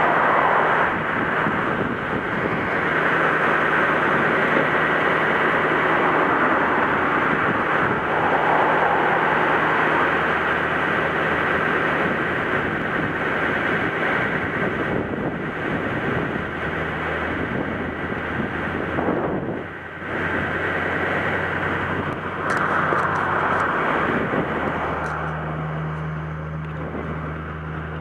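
A large truck engine running steadily, a low hum under a loud, constant rush of wind and surf. The engine hum grows stronger near the end.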